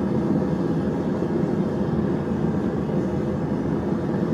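Home forge running with a steady low rumble.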